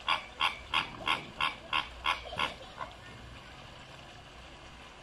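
An animal calling: a rapid series of about nine short, pitched calls, roughly three a second, growing weaker and stopping after about two and a half seconds.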